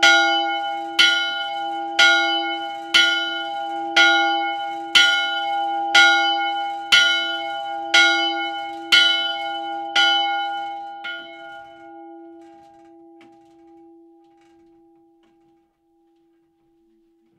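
Motor-swung bronze church bell pealing, its clapper striking about once a second over a steady hum. The strikes stop about eleven seconds in, and the ringing dies away over the next few seconds as the bell slows.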